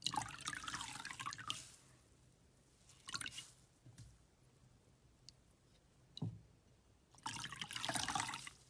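Slime being squeezed and worked by hand: bursts of wet, crackly squelching, a longer one at the start and another near the end, with a few short pops and clicks in between.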